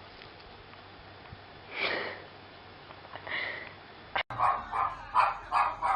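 A dog giving two short calls, then, after a cut, a dog barking quickly, about three barks a second; the barking is the loudest part.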